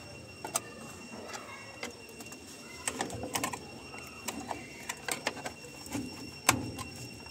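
Scattered clicks, clacks and rattles of the plastic control console and the sheet-metal display PCB cover of an LG top-load washing machine being handled and shifted, with a louder clack near the end.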